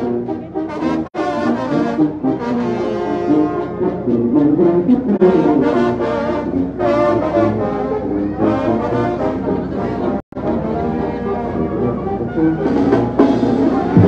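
Brass band music, with trombones and trumpets playing a melody. The sound cuts out for an instant about a second in and again about ten seconds in.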